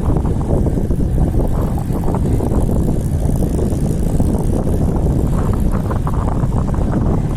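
Strong wind buffeting the microphone of a camera on a moving road bicycle: a loud, steady, rumbling rush.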